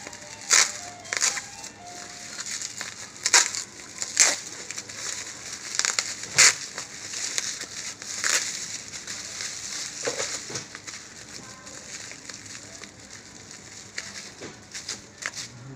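Plastic bubble wrap crinkling as hands squeeze and unwrap it, with sharp snaps at irregular moments throughout.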